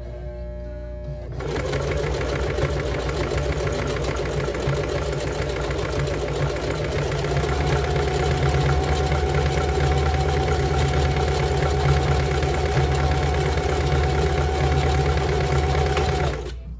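Singer Heavy Duty sewing machine running, stitching through climbing rope: it starts about a second in, runs steadily with a rapid stitch rhythm, and stops just before the end.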